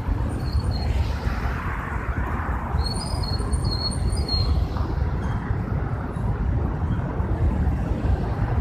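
Street noise while walking with a phone: a steady low rumble of wind on the microphone mixed with passing road traffic. A few brief high squeaks come about a second in and again around three to four seconds in.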